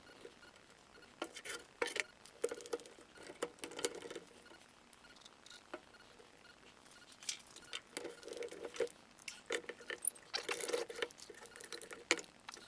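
Small wooden parts being handled and fitted together during a glue-up: irregular light taps, clicks and scraping in bursts, with a quieter pause about halfway through.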